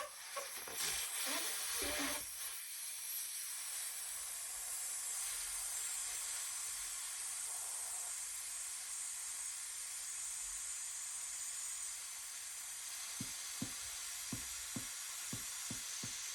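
Air hissing steadily out of a balloon's neck as the balloon slowly deflates. In the last few seconds a run of short ticks joins the hiss, coming faster and faster.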